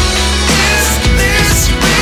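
Background pop song playing, with a melody line that bends in pitch.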